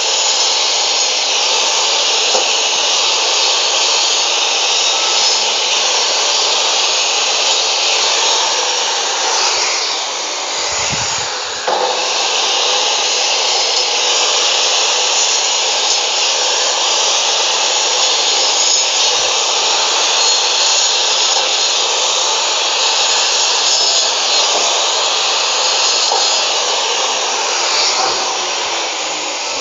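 Maktec 2000 W cut-off saw motor running steadily at full speed, its 7-inch 100-tooth aluminium-cutting blade sawing through cattle bone and meat. A brief lull and a knock come about eleven seconds in, and the level drops a little near the end.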